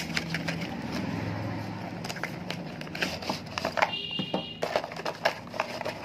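A small cardboard microphone box being opened by hand: the flaps and card crackle and scrape in irregular clicks and rustles. About four seconds in a brief high-pitched tone sounds for about half a second, over a steady low hum.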